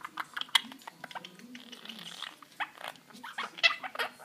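Two quaker parrots making short, soft chirps and squawks, with quick beak clicks and taps on the wire cage top and its toys.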